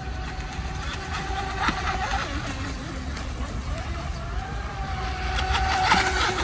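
Electric motor of a Delta Force Mini Storm RC speedboat (3400KV brushless, 11.1V pack) running at speed: a steady high-pitched whine over the hiss of the hull and spray on the water. The hiss swells briefly about a second and a half in, and again, loudest, as the boat passes close near the end.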